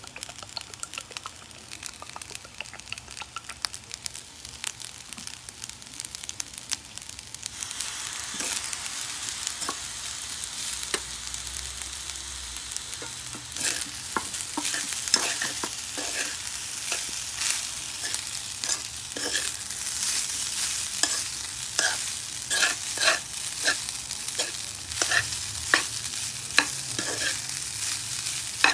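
Fried rice sizzling in a metal wok while a metal spoon stirs and scrapes it against the pan. Light taps at first; the sizzle comes up about a quarter of the way in, and quick scraping clacks grow frequent from about halfway.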